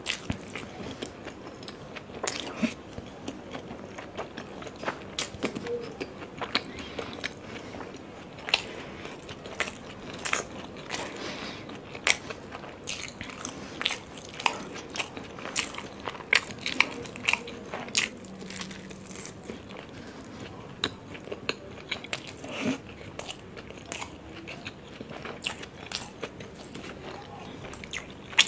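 Close-miked chewing of momos (dumplings): many short, sharp mouth clicks and smacks as the soft dough and filling are chewed.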